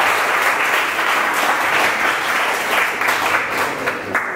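A crowd of guests applauding: dense, steady clapping that thins out near the end.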